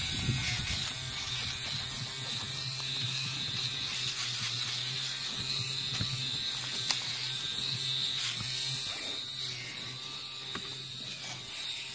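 Battery-powered handheld fabric shaver (lint remover) running with a steady motor hum while it is rubbed over cloth car-seat upholstery, shaving off fabric pills. One sharp click near the middle.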